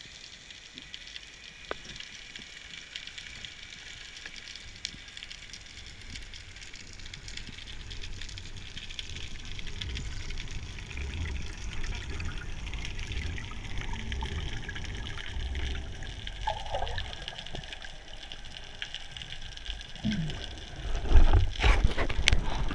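Underwater sound through a waterproof action-camera housing: a steady faint crackling hiss, with a low rumble of moving water that grows as the diver kicks his fins. Near the end come louder rushes and gurgles of water and bubbles.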